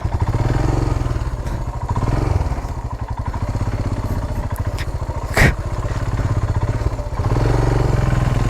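Royal Enfield Himalayan's single-cylinder engine running at low speed as the motorcycle is ridden slowly, with a single sharp knock about five and a half seconds in. The engine grows louder near the end.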